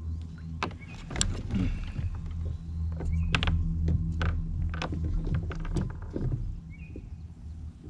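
Irregular knocks and rattles from a landing net and a bass being handled against a fishing kayak, over a steady low hum.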